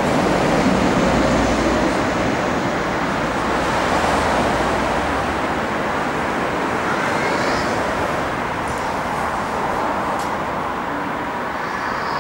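Steady rushing background noise across an open-air station platform, like distant traffic, with no train passing and only a few faint ticks near the end.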